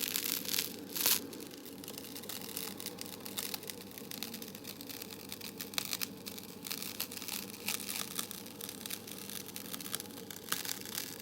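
Close-miked ASMR crinkling and crackling: a dense run of small crackles with a louder rustle about a second in, over a steady background hiss.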